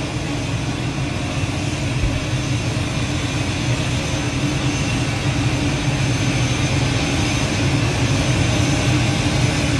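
Steady cabin noise of a jet in flight: an even, low drone of engine and air noise with a faint steady hum in it.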